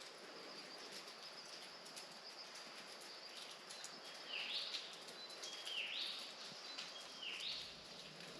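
A bird calling three times, each call a short rising whistle, about a second and a half apart, over a faint steady hiss.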